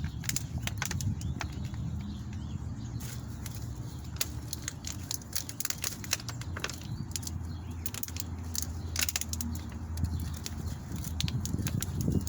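Scattered crackling and rustling from handling a viola plant, its plastic nursery pot and the soil, over a steady low wind rumble on the microphone.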